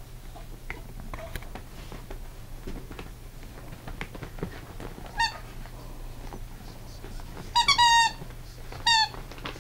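Squeaker in a plush dog toy squeaking as a bulldog puppy chews the toy and a hand squeezes it: once about five seconds in, then a quick run of several squeaks, and once more near the end. Faint rustling and chewing sounds come between the squeaks.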